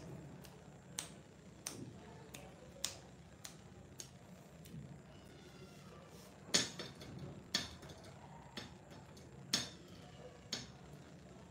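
A dozen or so sharp clicks and taps at irregular intervals over a low steady hum, the loudest ones in the second half.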